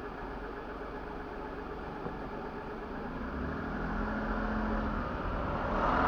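Car engine and road noise heard from inside the cabin as the car creeps forward in slow traffic. The sound grows louder from about halfway through, with a low steady hum for a couple of seconds and a louder rushing swell at the very end.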